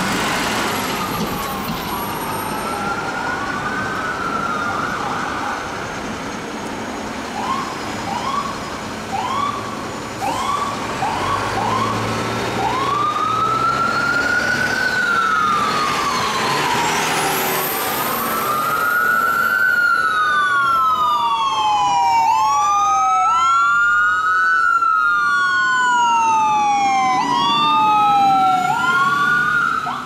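Electronic sirens of responding ambulances in city traffic. A slow rising and falling wail switches to quick short yelp chirps about a third of the way in, then back to the wail. In the second half two sirens sound at once, out of step, over the rumble of traffic.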